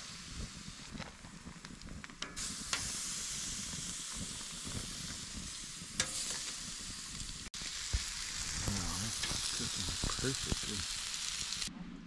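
Marinated chicken pieces sizzling on a steel grill grate over a campfire, a steady hiss that grows louder about two seconds in and cuts off just before the end. A few sharp clicks come as the pieces are turned with metal tongs.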